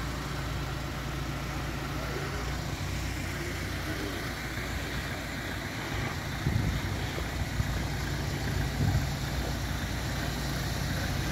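A stopped van's engine idling steadily, with a few short louder bumps after the middle.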